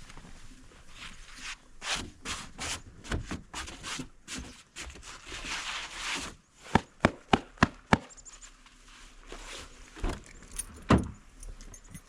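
Snow being brushed off a pickup truck: repeated swishing strokes, then a quick run of five sharp knocks and two heavier thumps near the end.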